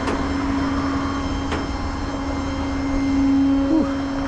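Steady engine drone with a constant hum, swelling briefly and dipping in pitch near the end, with two sharp clicks in the first two seconds.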